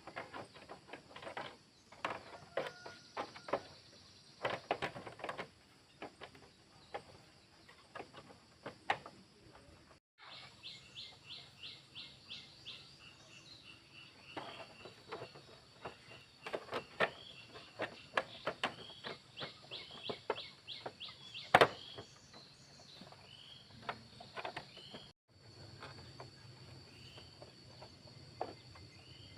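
Scattered light clicks and knocks of hand work on motorcycle parts, the sharpest about two-thirds of the way through. Birds chirp in quick runs, and insects trill steadily in the background.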